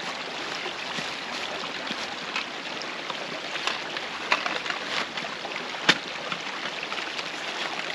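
Small woodland stream babbling steadily, with scattered rustles and clicks of camping gear being pulled from a bag; one sharp knock about six seconds in is the loudest sound.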